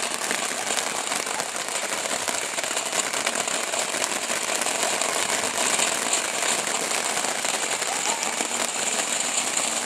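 TNT Rain Dance fountain firework burning: a steady hiss of spraying sparks with dense crackling throughout.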